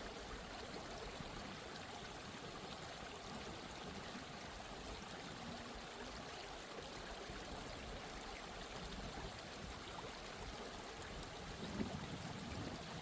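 Steady sound of flowing water, an even rushing with no breaks.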